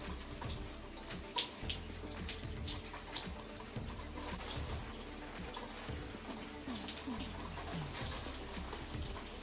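Shower running, water spraying steadily with scattered splashes and drips as it falls on hair and the tub; one sharper splash about seven seconds in.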